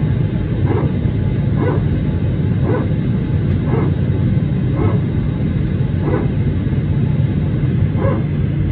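Airbus A321neo's hydraulic power transfer unit (PTU) under the cabin floor barking like a dog in short bursts about once a second, over the steady low rumble of the cabin. This is the normal sound of the PTU working, not a fault.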